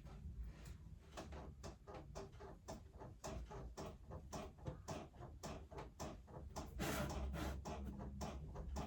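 Faint, rapid light taps and clicks, several a second, over a low steady hum.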